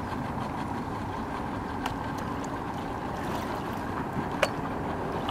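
Steady outdoor background noise of light wind and water, with two faint sharp clicks, about two seconds in and again near the end.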